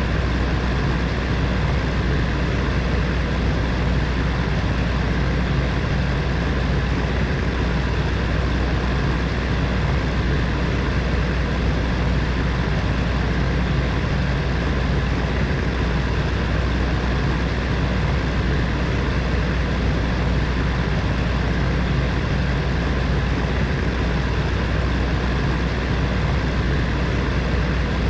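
Heater fan running steadily: a constant rush of moving air over a low hum, with no change in speed.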